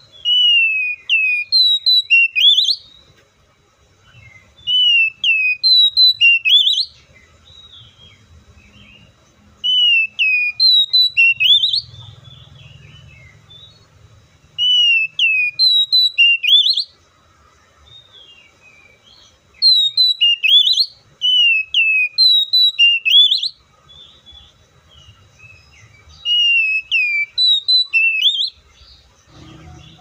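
A male Oriental magpie-robin singing: a phrase of clear whistled notes, each sliding down and then sharply up in pitch. The phrase comes six times, about every five seconds, with short pauses between.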